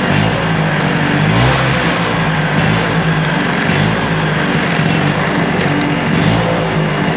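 Vespa T5 Classic's 125 cc two-stroke single-cylinder engine idling steadily while the scooter stands still.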